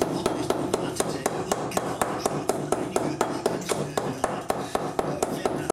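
Small hammer tapping a ball bearing down into the bore of a machined metal housing, seating it in rapid, even metallic taps, about five a second.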